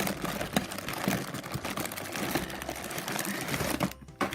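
Hands rummaging through a pile of blind bags and boxes: plastic and foil packets crinkling and clattering in a rapid, busy rustle. It stops abruptly about four seconds in.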